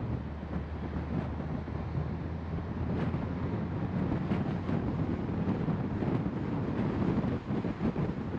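Car driving along a road: a steady low rumble of engine and tyre noise, with light knocks now and then.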